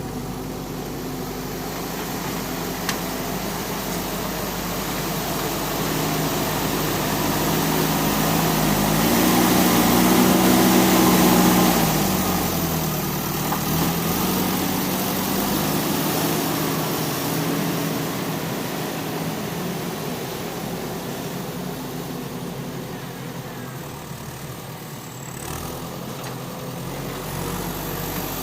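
Backhoe loader's diesel engine running, its revs rising about a third of the way in and falling back after a few seconds, then running steadily at lower revs.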